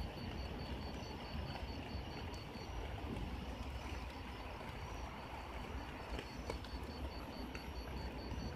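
Garden ambience in light drizzle: a steady soft hiss with a low rumble, and a high, rapid pulsing chirp of about five pulses a second that stops for a couple of seconds midway.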